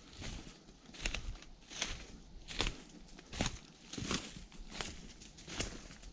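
Footsteps through dry fallen leaf litter at a steady walking pace, about one step every three-quarters of a second, each step a short rustle of leaves.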